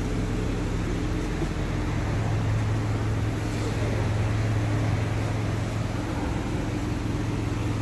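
2013 Dodge Durango's engine idling steadily with an even low hum, running again after standing unused for a long time and smoking on stale, soured gasoline.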